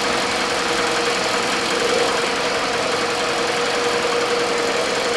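A 2003 Toyota Caldina's 1AZ 2.0-litre four-cylinder direct-injection petrol engine idling steadily with a constant hum. It is running to warm the automatic transmission fluid for a dipstick level check.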